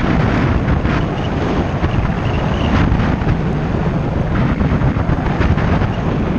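Wind buffeting the microphone of a camera on a moving bicycle: a steady, loud low rumble of noise.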